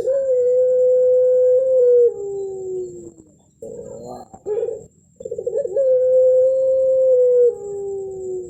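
Puter pelung dove, a contest breed of domestic collared dove, cooing twice in a row: each call opens with a few short notes, then one long, steady, held coo that drops a step lower near its end and slides down as it fades, the long 'melung' call with a thick ending prized in cooing contests.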